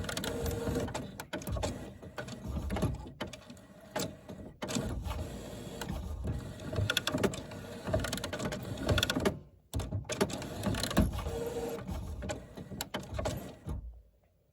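HP Photosmart Plus inkjet printer's mechanism running with an irregular clatter of clicks and whirring, making strange noises. It drops out briefly about two-thirds of the way through, starts again, and stops shortly before the end.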